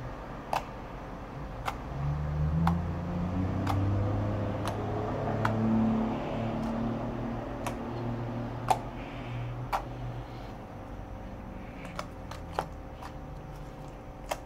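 Red slime being squished and poked by hand, giving sharp, irregular popping clicks. Under it a low humming rumble swells up about two seconds in and fades away again by about ten seconds.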